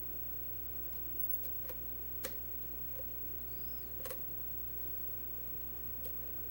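Sparse, irregular clicks of a lock pick working the pin stack of an ABUS 80/45 padlock under a tension wrench during single-pin picking, over a steady low hum.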